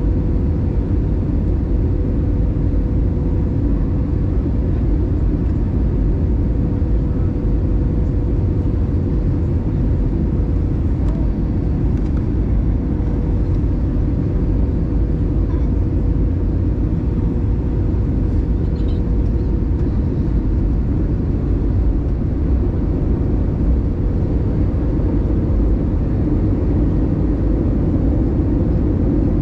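Cabin noise of an Airbus A320 in flight during its descent: the engines and rushing air make a loud, steady low rumble, with one steady hum running through it.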